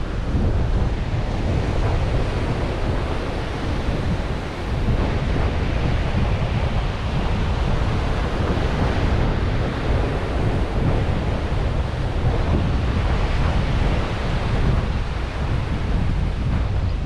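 Ocean surf washing on a beach, mixed with heavy wind buffeting the microphone; a steady, even noise with no distinct events.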